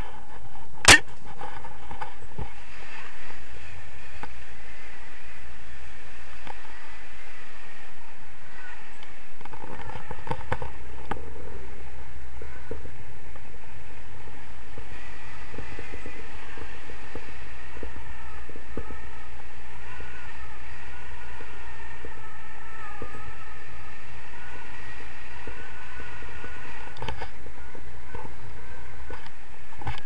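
Airflow rushing over the microphone of a camera carried by a tandem paraglider in flight, a steady rumble with faint wavering whistles. A single sharp knock on the camera about a second in.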